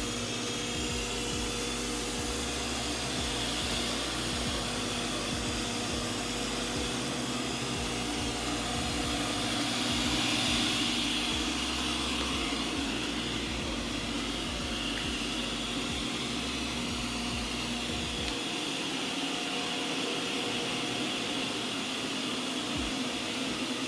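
Ecovacs Deebot N79W robot vacuum running, a steady whir of its suction fan and brushes. A low rumble underneath stops about three-quarters of the way through.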